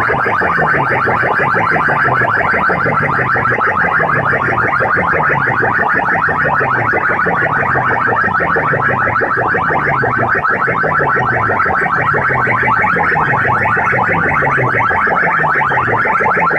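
Electronic alarm-like competition track blasted at high volume through a DJ sound system, distorted. A rapid buzzing pulse runs over a low tone that falls in pitch and repeats a little more than once a second.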